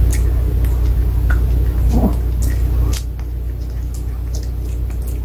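A Pomeranian chewing a hard probiotic chew treat: sharp, irregular crunching clicks over a steady low hum.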